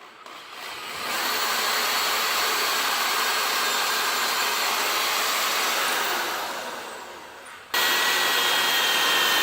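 Power drill boring holes through a metal bracket. It spins up over about a second, cuts steadily, then winds down. About three quarters of the way in, a second run starts abruptly with a steady high whine.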